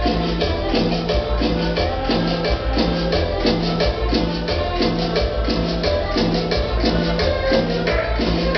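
Cumbia music played loud over a sound system, with a repeating bass pattern and quick, even percussion on top.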